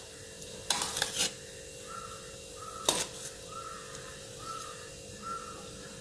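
Cooked rice being spooned into a pot and spread with a metal spoon, with short scraping rustles about a second in and again at three seconds. Faint short calls sound in the background.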